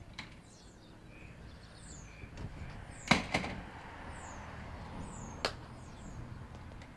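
A front screen door knocking open and shut about three seconds in, with a sharp latch click a couple of seconds later. Small birds chirp with short falling calls throughout.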